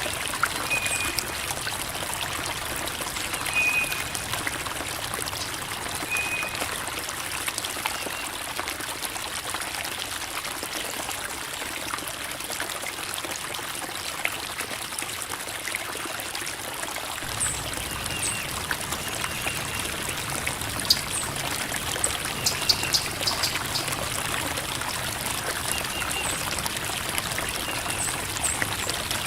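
Creek water trickling and babbling over rocks in a steady, even flow, with short faint high chirps every few seconds.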